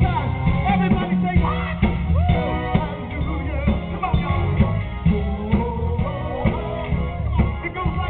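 Live band playing amplified music: a male voice singing over electric bass, drum kit and keyboards.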